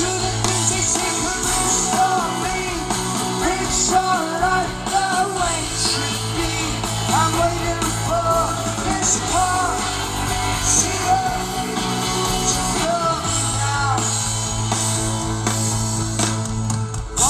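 Rock band playing live, with singing over electric guitars, a sustained bass line and drums.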